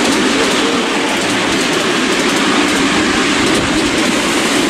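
Miniature railway train running steadily along the track behind a miniature Intercity 125 Class 43 HST loco, heard while riding in the passenger car. The wheels rumble with light clicking over the rail joints.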